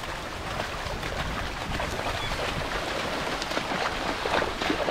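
Feet splashing and sloshing through shallow seawater while wading, an irregular crackle of splashes that thickens in the second half, over wind rumbling on the microphone.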